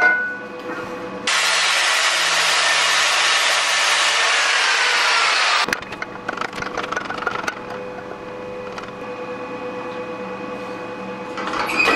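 A loud, even hiss starts abruptly about a second in, with a faint falling tone inside it, and cuts off abruptly about four seconds later. After it come light clicks and knocks of a steel pipe being handled and fitted into a press frame.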